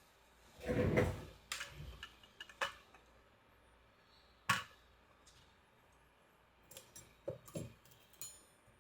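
Scattered small clicks and clinks of hand tools being handled and set down on an electronics workbench during desoldering, with a louder knock about a second in and a sharp click a little past the middle.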